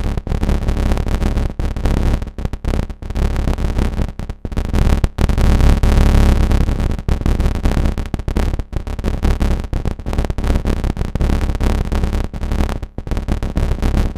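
Make Noise modular synthesizer patch doing pulsar synthesis: an XPO oscillator chopped into short envelopes by the QMMG's VCAs and high-pass filters, with Maths envelopes pushed in and out of audio rate by Wogglebug stepped random voltage. A dense, buzzing, stuttering texture with a strong low end and many brief, irregular dropouts.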